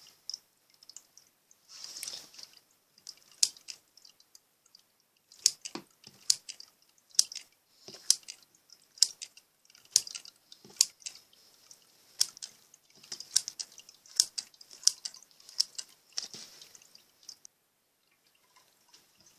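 Slime being squished by hand, trapped air bubbles popping in a string of sharp pops, about one a second through the middle; the popping stops shortly before the end.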